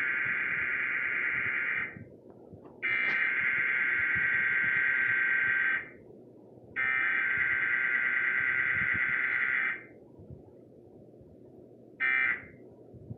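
Emergency Alert System SAME header tones: the buzzing two-tone digital data signal that encodes the Required Weekly Test, sent as three bursts of about three seconds each with a second's gap between them. A short burst of the same sound comes about twelve seconds in.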